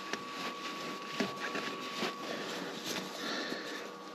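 Faint handling noise from a gloved hand on a tractor engine's spin-on filter: light rustling with a few small clicks, over a thin steady high tone.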